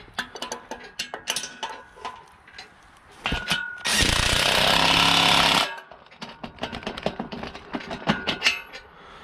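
Cordless impact wrench hammering a bolt tight in one burst of under two seconds near the middle, with scattered clicks and clinks of metal hoist parts and sockets being handled before and after.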